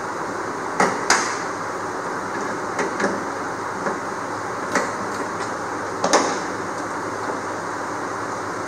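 Irregular sharp metallic clicks and knocks, hand tools and bolt hardware against an aluminum jon boat's transom during a jack plate installation, over a steady background noise.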